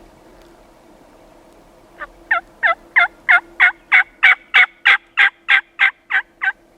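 Turkey yelping: a run of about fourteen loud, evenly spaced yelps, roughly three a second, each dropping in pitch, starting about two seconds in.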